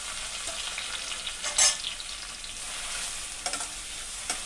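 Chopped onions sizzling in hot oil and butter in a kadai, with a few short scrapes and knocks of stirring.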